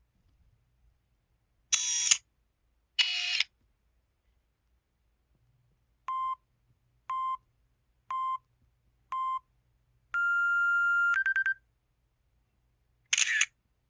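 An IM-U440K mobile phone's built-in electronic sound effects: two short noisy clicks, then four short beeps a second apart, a longer held beep ending in a brief higher tone, and one more short noisy click near the end.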